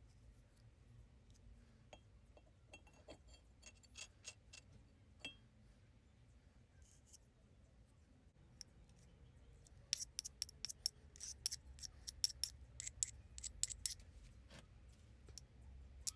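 Small metal parts and hand tools clicking and clinking as they are handled, with a few short metallic rings in the first few seconds. A quick run of sharp clicks follows in the second half.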